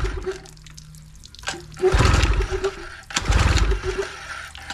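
Nissan 18 hp two-stroke outboard motor cranking and sputtering in repeated loud bursts, about one every second and a half, with churning water. The freshly cleaned carburetor is not yet letting it stay running.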